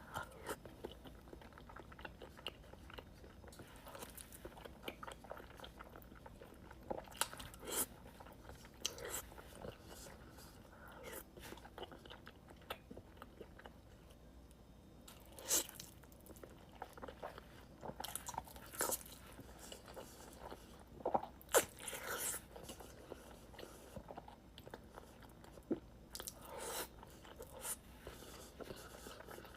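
Close-up eating sounds: irregular bites and crunches with chewing, the loudest bites about halfway through and twice more a few seconds later.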